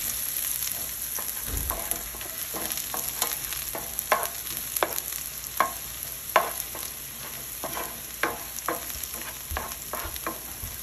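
Chopped ginger and green chili sizzling in oil in a nonstick frying pan while a wooden spatula stirs them. Irregular short taps and scrapes of the spatula against the pan sound over the steady sizzle.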